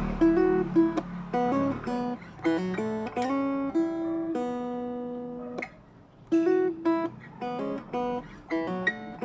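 RJ Acousticaster acoustic-electric guitar playing a melody of single picked notes. One note is held for over a second midway, there is a short gap, and then the picking resumes.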